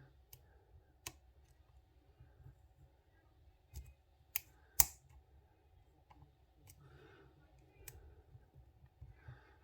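Faint, irregular metallic clicks of a lock pick and tension tool working the pins inside a Viro chain link lock, with a sharper click just before five seconds in.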